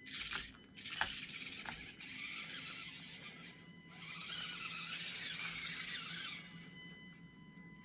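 Axial SCX24 micro crawler's small electric motor and gears whining as it crawls over the course, with a few light clicks in the first two seconds. The whine fades about six seconds in.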